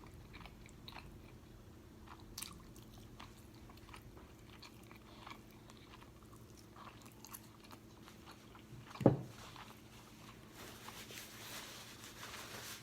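Close-miked chewing and wet mouth sounds of a person eating, with scattered small clicks. A single loud, low thump about nine seconds in.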